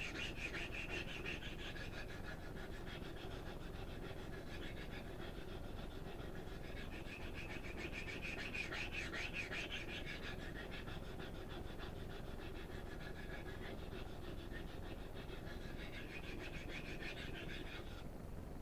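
Kitchen knife blade stroked rapidly back and forth on a coarse 325-grit DMT diamond sharpening stone: a steady, rhythmic rasping that stops just before the end. This is the stone refining the edge bevel.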